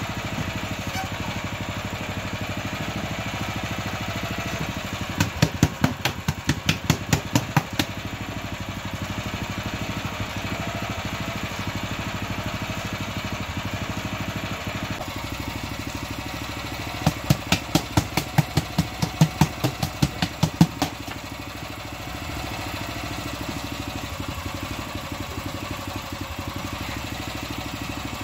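Small stationary engine running steadily. Twice, a run of quick, evenly spaced knocks, about four a second and each run lasting about three seconds, rises above the engine.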